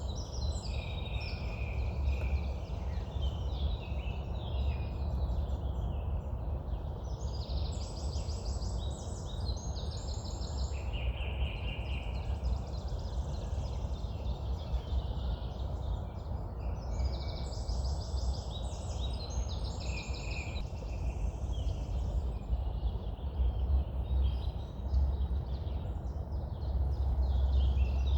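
Song thrush singing at dawn: short phrases of quickly repeated notes, one after another with brief gaps, with other birds singing alongside. A steady low rumble runs underneath.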